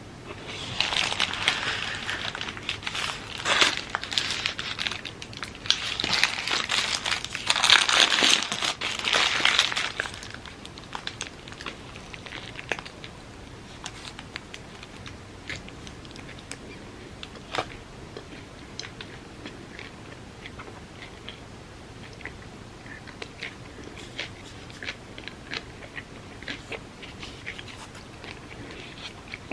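Close-miked eating of a vegan pita gyro: crinkling and crunching for about the first ten seconds, then quieter chewing with small, scattered mouth clicks.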